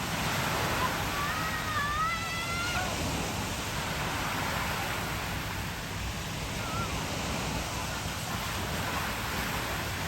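Steady rush of ocean surf. A high, rising call sounds briefly about a second in.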